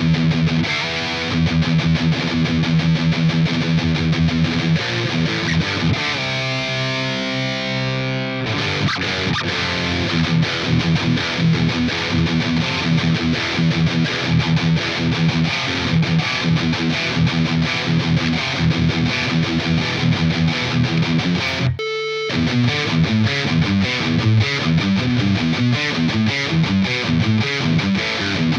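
Epiphone Explorer electric guitar played through a distorted amp-simulator tone, rhythmic riffing. About six seconds in, a chord is left ringing for a couple of seconds. Just before two-thirds through, the sound cuts out for a moment, then the riffing resumes.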